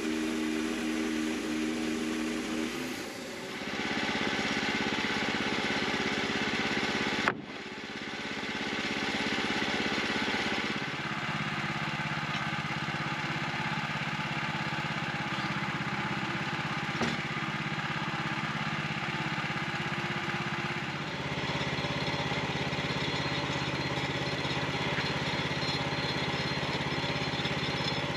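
Portable bandsaw mill's engine running steadily while its band blade cuts through a cant of hard, gritty beech. The tone shifts several times, with an abrupt break about seven seconds in.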